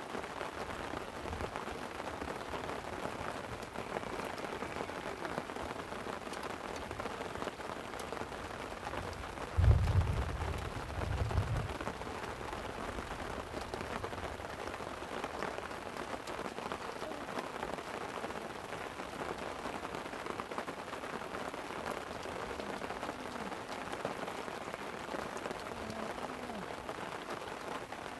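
Steady light rain pattering on a tent, with a short low rumble of thunder about ten seconds in that swells twice and fades.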